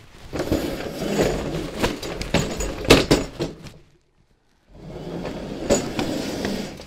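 Scraping and knocking of a folding table being handled, with a sharp knock about three seconds in. It stops for about half a second past the middle, then the scraping resumes.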